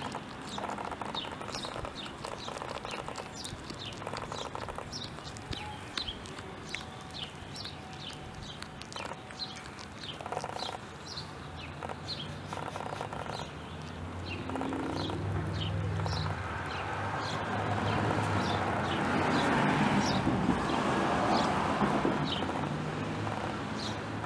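A cat chewing a vole, crunching through its bones, over the repeated short high chirps of small birds. A broad rush of noise swells up past the middle and is loudest near the end.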